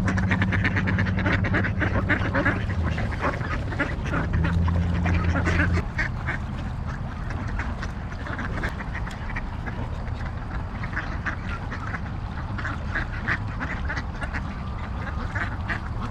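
Ducks quacking repeatedly, many short calls overlapping, over a low steady hum that stops about six seconds in.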